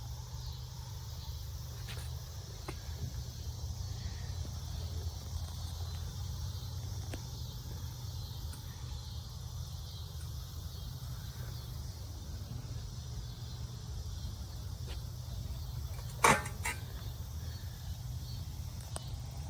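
Steady low hum of an idling car engine under a faint high hiss, with a sharp click and a smaller second click about 16 seconds in.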